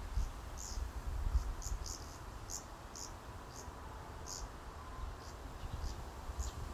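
Forest ambience: small birds giving short, high chirps at irregular intervals, over a low rumble of wind on the microphone.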